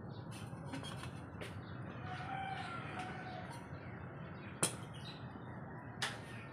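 Clicks and light knocks of a camping kettle and stove being handled, the sharpest click about four and a half seconds in. Under them runs a steady low rushing noise, and birds call in the background.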